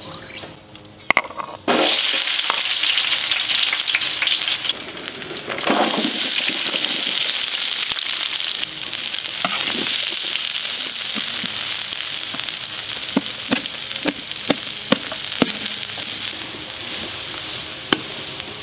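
Sliced onions sizzling in hot oil in a steel wok made from a 55-gallon drum, stirred and scraped with a spatula. The sizzle starts abruptly about two seconds in, and near the end the spatula knocks against the pan several times.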